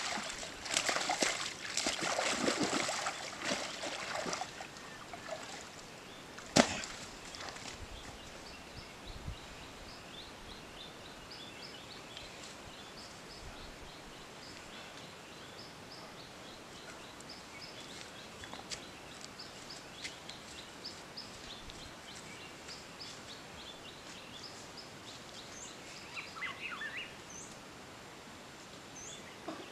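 Hands splashing and sloshing in shallow muddy water for the first four seconds or so while grabbing a fish, with one sharp knock about six and a half seconds in. After that only a quiet outdoor background, with small birds chirping faintly.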